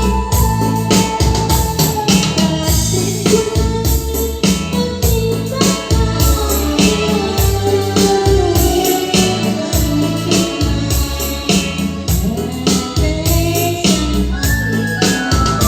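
Keyboard music: an electronic organ-style melody over a steady, regular beat.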